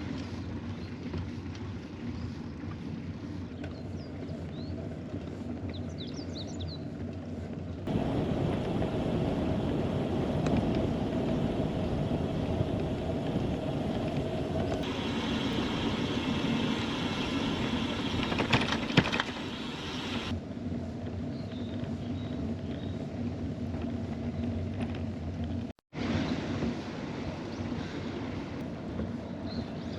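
Steady outdoor noise of a bicycle ride, with wind on the microphone. It changes abruptly at several cuts and drops out briefly near the end. A few faint high chirps sound around five seconds in.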